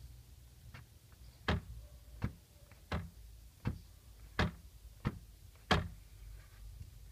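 Peugeot 206 CC rear shelf knocking: a string of about eight sharp clacks, roughly one every 0.7 seconds, over a steady low rumble.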